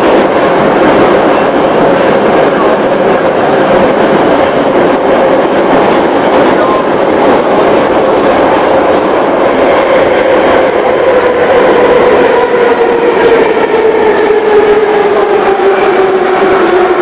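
Metrowagonmash 81-717.6/714.6 metro train running through a tunnel, heard from inside the car: a steady rumble of wheels on the rails with a whine from the traction motors. About halfway through, the whine starts to fall slowly in pitch as the train slows.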